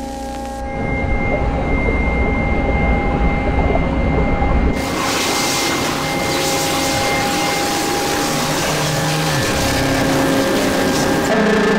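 Noisy drone score: several held tones over a heavy deep rumble that cuts off about five seconds in, leaving a loud hiss under the tones.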